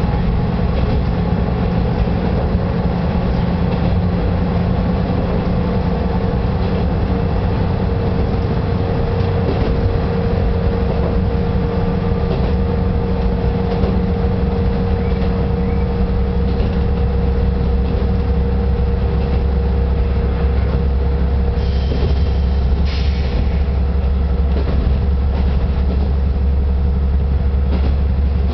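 Kanto Railway Kiha 0 series diesel railcar running along the line, heard from inside the cab: a steady drone of the diesel engine and wheels on rail. The deeper part of the hum grows stronger about two-thirds of the way through, and a brief higher-pitched sound comes in about three-quarters of the way.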